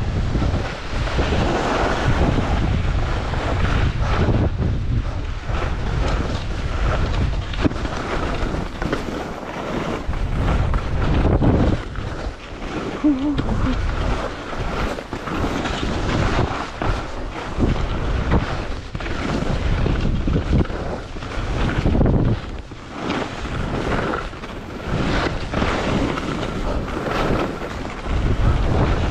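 Wind rushing over a GoPro's microphone while skiing downhill, in gusts that swell and dip every second or two, mixed with the scrape of skis on snow.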